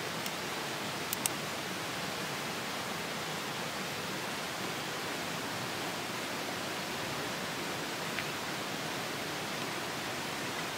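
Steady rushing of a stream running over rocks. A few small clicks come about a second in and again near the end as a plastic case is handled.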